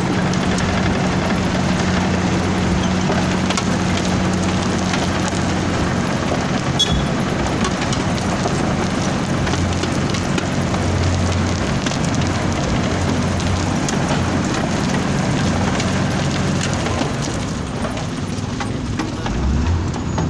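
Wirtgen W1000 cold milling machine at work: its engine runs at a steady pitch under a constant dense grinding noise as the drum strips asphalt, with a few sharp cracks. The engine note drops away a few seconds before the end.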